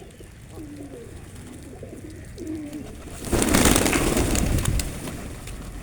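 Pigeons cooing softly with low, wavering calls. About three seconds in comes a loud rush of noise lasting over a second.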